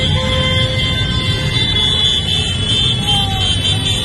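A convoy of motor scooters and cars passing with engines running and horns honking. One short honk sounds at the start, over a steady high horn tone.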